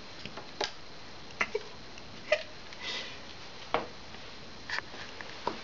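A handful of separate light taps and clicks, about a second apart, as a Siamese cat paws and noses a small toy frog about on a tiled floor.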